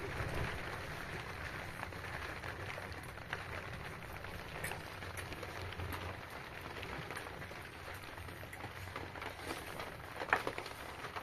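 Raw chicken being threaded onto metal skewers over metal trays: soft handling sounds and small scattered clicks over a steady background hiss, with one sharper click about ten seconds in.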